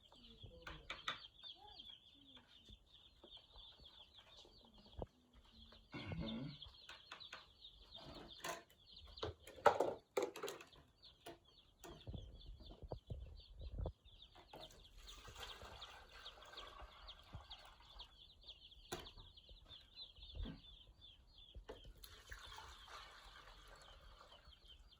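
A brood of day-old broiler chicks peeping continuously in a dense, high-pitched chorus, with scattered knocks and rustles, the loudest about ten seconds in.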